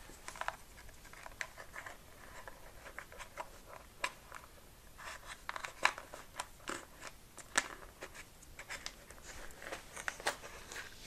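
Faint, scattered clicks, scratches and rustles from hands handling a servo lead and its plug and tucking the cable into the servo bay of a carbon-fibre wing.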